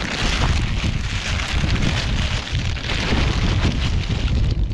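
Strong wind buffeting the microphone, with the crackling rustle of a plastic bag being handled.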